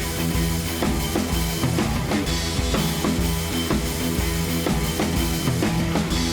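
Background music with a steady drum-kit beat: bass drum and snare over sustained instrumental notes.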